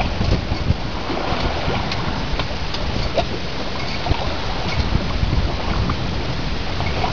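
Steady rush and rumble of wind buffeting the microphone aboard a sailing yacht under way, with a few faint ticks.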